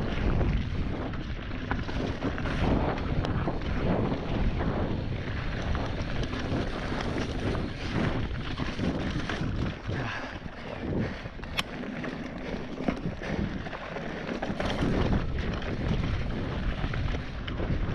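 Wind buffeting the microphone of a mountain bike's onboard camera during a fast downhill run, over the rumble of tyres on dirt and a steady run of knocks and rattles from the bike. There is one sharp click about eleven and a half seconds in.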